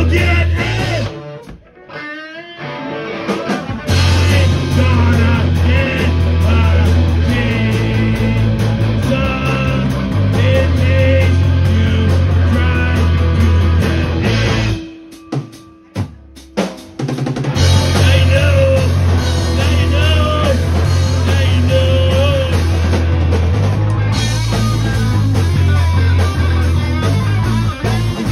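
Live rock band playing loud on electric guitars, bass guitar and drum kit. The band drops out briefly twice, about a second and a half in and again about fifteen seconds in, before coming back in full.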